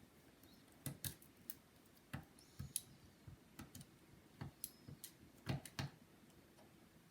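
Light, irregular clicks and ticks of a precision screwdriver turning out the small screws that hold a MacBook's MagSafe port.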